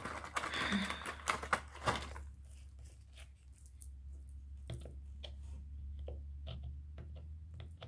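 Hands handling small craft decorations on a work table: a dense rustle with clicks for about two seconds, then a few scattered light clicks and taps, over a low steady hum.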